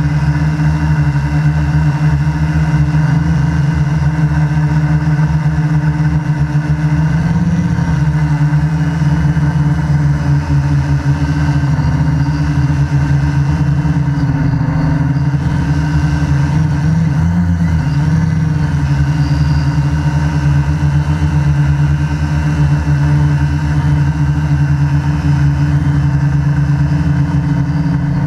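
Multirotor drone's brushless motors and propellers heard from the camera on its frame: a steady hum of several tones that shifts slightly in pitch a few times as the motor speeds change.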